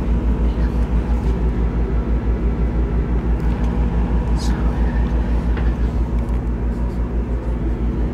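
Steady low rhythmic throbbing, like an engine running, with a constant hum over it and faint indistinct voices.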